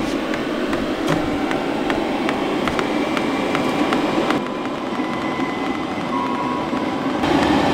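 Chinese 5 kW diesel air parking heater running during its start-up priming: a steady blower whoosh with faint ticks of the fuel dosing pump through it. About halfway the blower noise drops a little and a faint whine appears.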